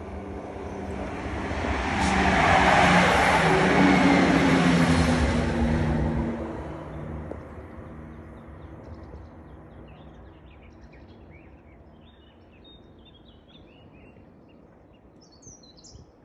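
A car passes close by, its engine and tyre noise swelling to a peak about two seconds in and fading away by about seven seconds. Faint bird chirps follow in the second half.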